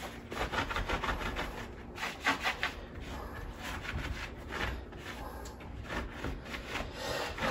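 A cloth rag rubbing and wiping over the plastic case of a car battery in quick, repeated strokes.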